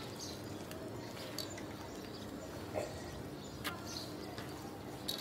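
Hands mixing and squeezing crumbly flour dough in a stainless steel bowl: a soft rustling with a few light clicks against the bowl. Faint short bird chirps sound in the background.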